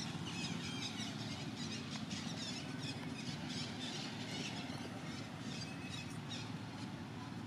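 Outdoor ambience of many short, high squeaky chirps from small animals, repeated irregularly throughout, over a steady low rumble.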